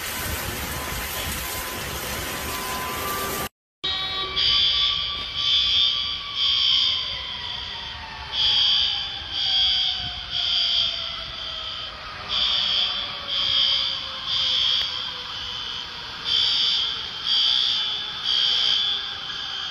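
Heavy rain and rushing floodwater as a steady hiss. After an abrupt cut about three and a half seconds in, a fire or smoke alarm beeps high-pitched in repeating groups of three, the temporal-three evacuation pattern, over the noise of water.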